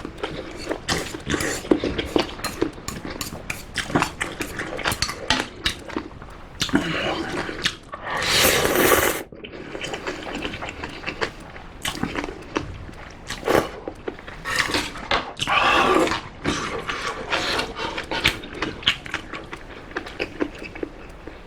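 Close-miked eating of spicy ramen and giant shrimp: a dense run of wet chewing and smacking clicks, with a longer noisy slurp about eight seconds in and a shorter one near sixteen seconds.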